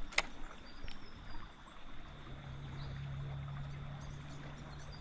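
Water lapping and trickling around a small boat drifting on a river, with a sharp click just after the start and a low steady hum that comes in a little over two seconds in.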